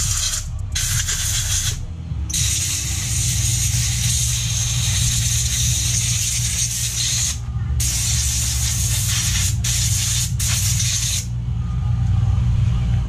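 Compressed-air blow gun hissing in several long blasts with short breaks, blowing a small metal engine part clean after a wash in fuel; the air stops about two seconds before the end.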